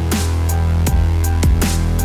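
Electronic background music with a heavy sustained bass line and a steady drum beat.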